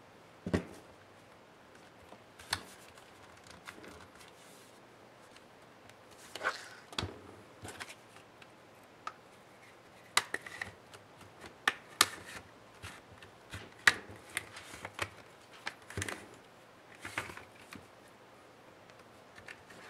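A plastic laptop display bezel being pried off the lid: its snap-in clips click and crack one after another, irregularly, many in quick succession in the second half. A single thump about half a second in.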